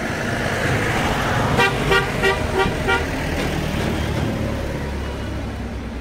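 A vehicle horn sounding five short, evenly spaced toots, about three a second, over a steady low rumble and background noise.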